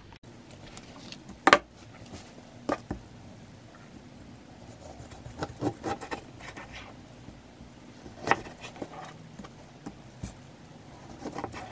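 Knife cutting an orange into quarters on a paper-lined wooden cutting board: a handful of separate sharp knocks as the blade meets the board, with quieter handling sounds between.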